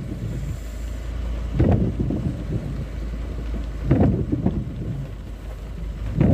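Inside a car stopped in heavy rain: a steady low rumble of the idling engine and rain on the bodywork. Windscreen wipers sweep the glass with a short rubbery squeak about every two and a half seconds, three times.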